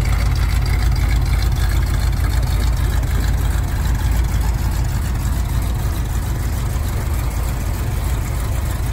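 Chevy 283 small-block V8 in a 1980 Jeep idling steadily through its exhaust, a continuous low rumble.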